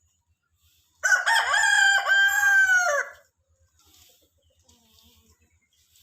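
A rooster crowing once, one long cock-a-doodle-doo starting about a second in and lasting about two seconds.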